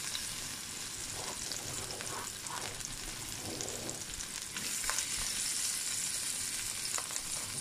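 Chopped garlic and ginger sizzling gently in hot oil in a frying pan, a soft steady hiss that grows a little louder about halfway through.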